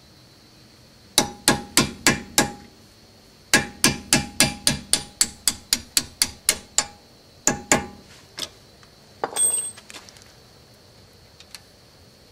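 Hammer striking a punch to drive the brake pad retaining pins out of the front brake caliper of a 1991 Mercedes 420 SEL. The metallic strikes ring and come in runs, about four a second at their fastest, with a few single taps and a brief rattle after them.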